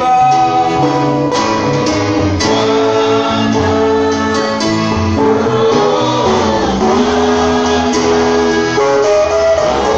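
Live gospel worship music: a group of singers on microphones leads a standing church congregation in song over instrumental accompaniment, with long held notes.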